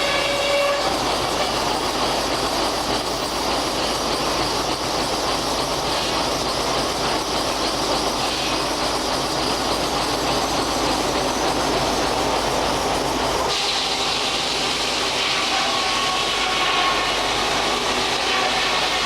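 Steam-powered sawmill's circular saw running. A pitched whine stops about a second in and gives way to a dense, steady rasping noise as the blade cuts through a log; the noise turns brighter and thinner near the end.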